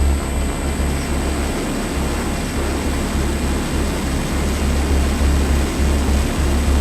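Micro Skyhunter RC plane in flight, its brushless motor and propeller running steadily, with wind rushing and buffeting a small onboard camera microphone.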